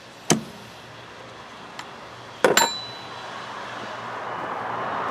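Two sharp knocks about two seconds apart, the second a metallic clink that rings briefly.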